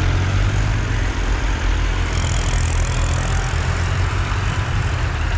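Several diesel farm tractors driving together at a steady throttle: a continuous low engine drone with a steady hiss over it, the New Holland 3600 the closest.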